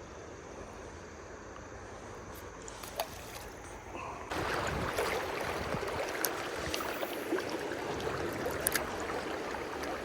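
Flowing river water, faint at first, then suddenly louder and closer from about four seconds in, with scattered small clicks over the rush.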